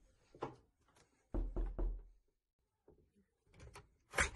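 A few dull thumps of footsteps and handling, then a door's lever handle being worked, with small clicks and a sharp latch click near the end as the front door is opened.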